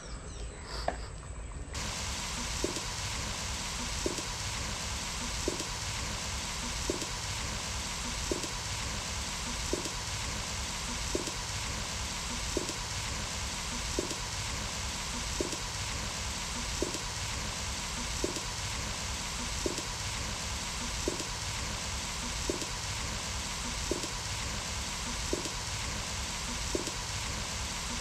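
Curry boiling in an iron kadai: a steady sizzling hiss that sets in abruptly about two seconds in, with a soft tick repeating about every second and a half.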